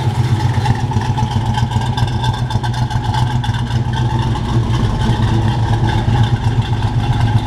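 1964 Pontiac GTO's 389 Tri-Power V8, fitted with headers and a dual exhaust, idling steadily, heard at the tailpipes.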